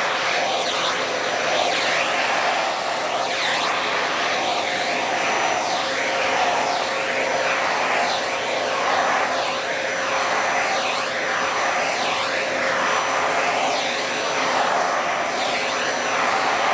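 Vacuum cleaner running steadily with a constant motor hum, its airy rush swooping up and down in pitch about once a second.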